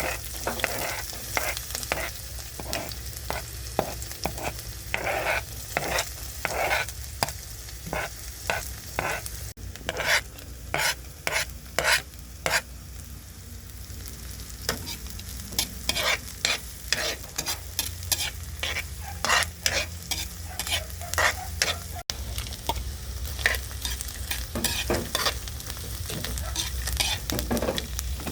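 Food frying in a pan with a steady sizzle, stirred with a utensil that scrapes the pan in quick, irregular strokes.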